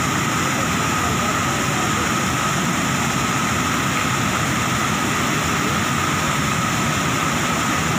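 Fast water pouring over rocks and churning into white foam, a loud, steady rush.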